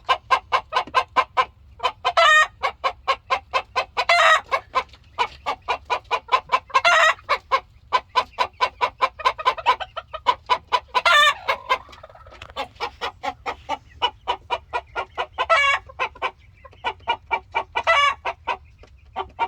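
Rooster clucking in long, fast, even runs of about five clucks a second, the 'talking' of a rooster, with a louder drawn-out squawk every few seconds.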